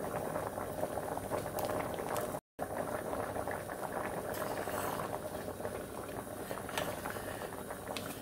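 A pot of chicken stew, thickened with milk and flour, at a rolling boil: a steady dense bubbling with occasional sharp pops, as it is brought to the boil to thicken into a gravy. The sound drops out for a split second about two and a half seconds in.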